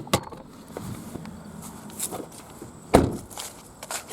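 A few sharp clicks and knocks from handling, with one louder thump about three seconds in.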